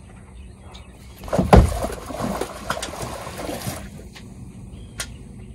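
A large blue catfish released over the side of a boat into the lake: a loud splash about a second and a half in, followed by a couple of seconds of splashing water that dies away.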